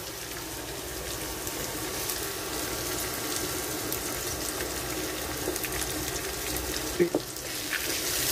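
Chopped onions and garlic cloves sizzling in hot oil in a frying pan, a steady crackling hiss. About seven seconds in, a wooden spatula knocks against the pan a few times as the stirring starts.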